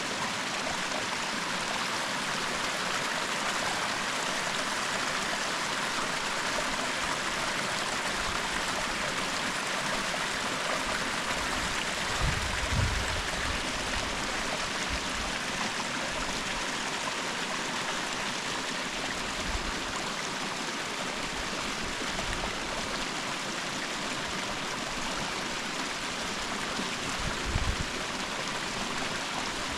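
Steady rush of flowing water, with two short low thumps, one about twelve seconds in and one near the end.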